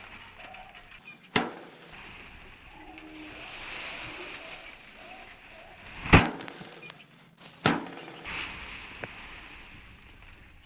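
Three sharp thwacks, about a second and a half in, then twice close together past the six-second mark, over a faint steady background hiss.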